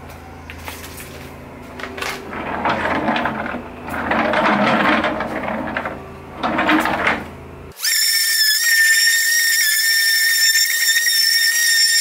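Irregular scraping and knocking as the wooden cabinet on casters is handled, then from about eight seconds a cordless drill running with a steady high whine.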